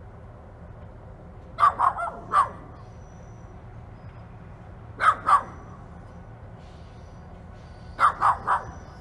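A dog barking in three short bouts: three or four barks about two seconds in, two barks around five seconds, and three near the end. Underneath runs a low, steady rumble from the slowly approaching diesel locomotive.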